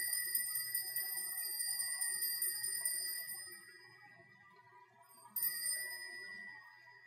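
Altar bell rung at the elevation of the chalice during the consecration at Mass. Its ring fades out over the first three seconds or so, then it sounds again, more briefly, about five seconds in, as the priest genuflects.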